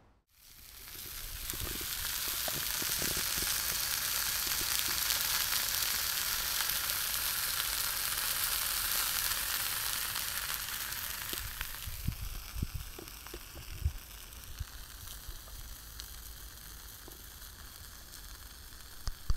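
Bratwurst sausages sizzling in a frying pan over a campfire. The sizzle is steady and loud for about the first ten seconds, then eases to a quieter sizzle with scattered sharp ticks and a few knocks.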